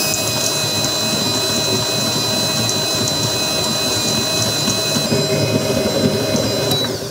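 Vevor 7.4-quart stand mixer's motor running steadily with a constant high whine while its stainless steel paddle creams butter and sugar in the bowl. Near the end the motor is switched off and winds down.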